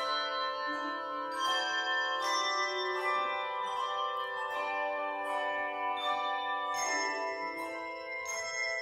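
Handbell choir ringing a slow hymn tune in several parts: chords of handbells struck about once a second, each left ringing on into the next.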